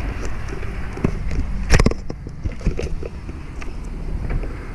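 Low wind and traffic rumble on the microphone while riding a folding bicycle, with a sharp knock and a short clatter of rattles nearly two seconds in; the rumble is quieter after that.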